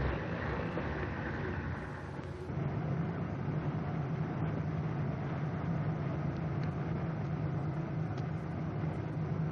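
Small canvas-covered flatbed truck's engine running, a steady low drone that grows louder about two and a half seconds in.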